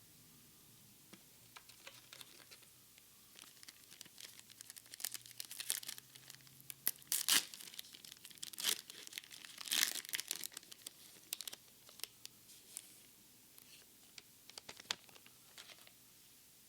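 A Pokémon card booster pack's foil wrapper being torn open and crinkled by gloved hands: a run of sharp crackling tears, loudest about seven and ten seconds in.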